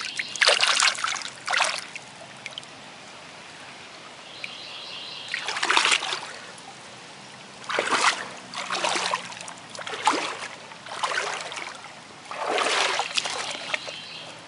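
Splashing in shallow, fast-flowing creek water over the steady trickle of the stream: a cluster of splashes in the first two seconds, then a splash about every second from about five seconds in.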